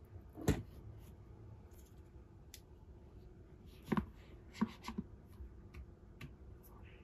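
Handling sounds from a cardboard gift box and a walnut-wood Bluetooth speaker. There is a dull knock about half a second in, then a cluster of knocks and clicks around four to five seconds in as the speaker is set down and handled, and one lighter knock near the end.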